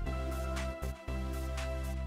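Background music: sustained bass and chord notes over a steady percussive beat, dipping briefly about halfway through.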